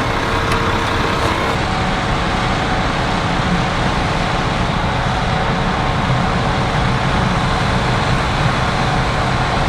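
Heavy diesel harvest machinery running steadily, an even engine drone with a constant hum.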